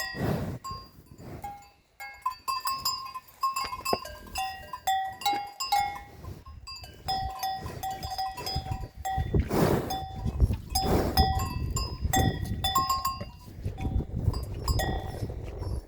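Several bells worn by grazing cattle clanking irregularly, short ringing notes at a few different pitches that overlap, with low rustling and occasional knocks.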